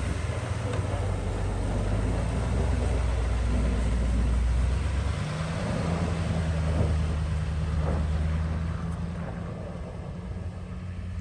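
A vehicle engine running steadily under a broad rush of noise, its note changing about five seconds in and easing off near the end.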